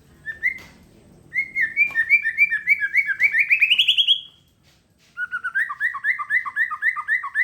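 Songbird singing two rapid series of repeated whistled notes. The first series speeds up and climbs in pitch at its end; the second, after a short pause, alternates a higher and a lower note.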